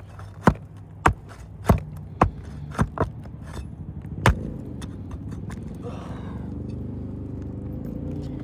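Sharp metal strikes about twice a second, then one more near the middle: a flat bar being tapped under a roof shingle to work its nails out of the nail track. After the last strike a steady low mechanical hum takes over.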